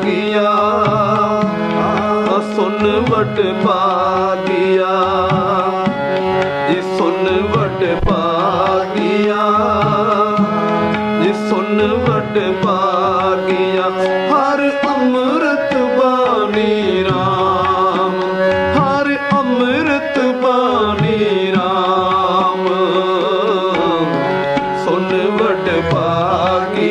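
Shabad kirtan music: tabla playing a steady rhythm under a wavering melodic line with vibrato, over a sustained low drone.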